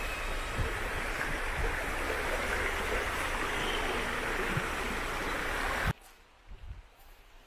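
A shallow river running over rocks: a steady rushing of flowing water with a low rumble underneath, which cuts off suddenly about six seconds in, leaving only faint quiet background.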